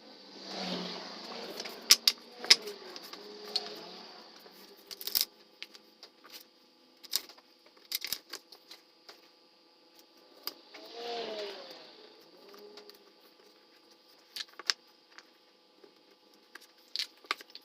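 Sped-up workshop sounds of picture-frame assembly: scattered sharp clicks and knocks of wooden parts being handled, with two short swells whose pitch rises and falls, about a second in and again near the middle.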